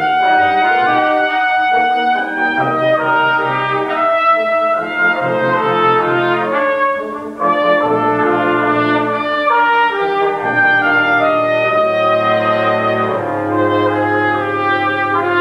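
A brass quintet of trumpets, French horn, trombone and tuba playing live music in held chords over a moving bass line, with a brief break between phrases about seven seconds in.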